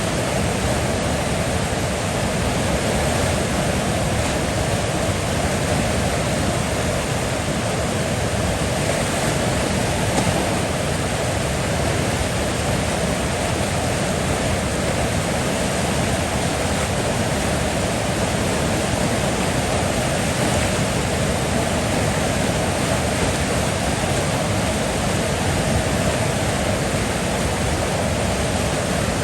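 River water flowing steadily, a constant rushing noise with no breaks.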